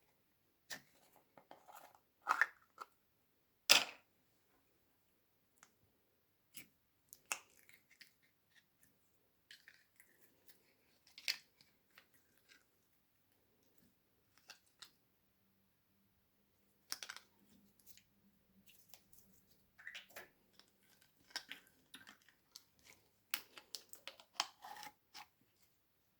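Slime being handled, giving irregular sticky crackles and small clicks, with a couple of sharper snaps early on and a denser run of crackles in the second half.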